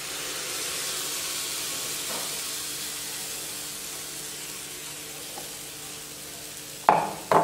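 Pancake batter of almond flour, egg and banana sizzling on the hot plate of a roti maker, loudest at first and slowly dying down. Two brief, louder sharp sounds near the end.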